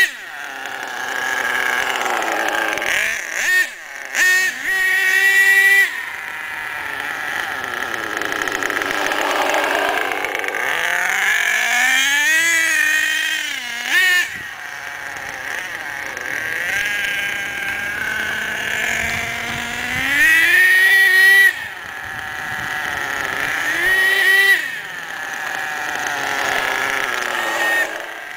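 HPI Savage X's F4.6 nitro engine revving up and down in repeated throttle bursts as the truck drives around, its pitch climbing and falling every few seconds. The engine is being broken in, so it is held back from running wide open.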